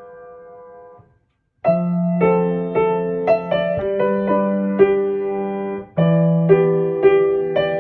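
Background piano music: a held chord fades out and breaks off about a second in, then after a short silence the piano comes back with struck chords and a melody.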